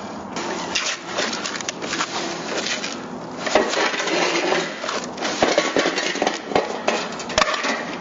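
Plastic cling film and tape being pulled and wrapped around a horse's hoof over a freshly applied repair, with irregular crinkling and crackling and a few sharp knocks in the second half.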